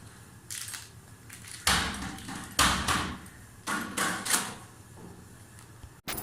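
Parcel packaging being handled: four short, loud rustling bursts a second or so apart.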